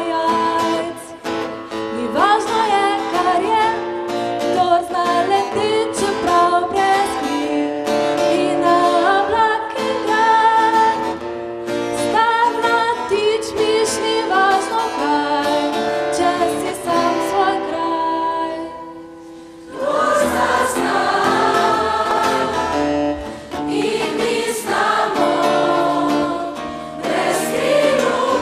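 A choir singing to music, many voices together. The sound drops briefly about two-thirds of the way through, then the choir comes back in fuller.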